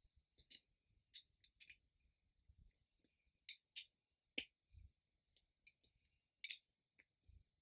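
Faint, irregular small clicks and crinkles, a couple each second, of small objects being handled.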